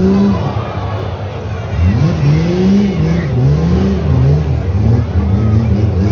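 Demolition-derby ute engines revving up and falling back again and again, their pitch rising and dropping roughly once a second over a steady low rumble.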